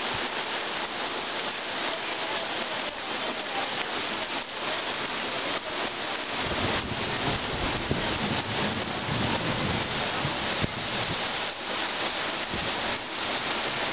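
Heavy rain pouring down steadily onto a cobblestone street, a dense hiss of countless drops. A low rumble joins about six and a half seconds in.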